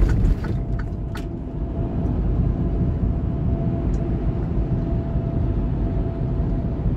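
Steady low rumble of a truck's cab while driving: engine and road noise. A faint steady tone comes in about a second in, and there are two light clicks near the start.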